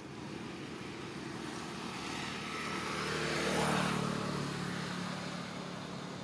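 A vehicle engine passing: a steady hum grows louder to a peak a little past the middle, then fades away.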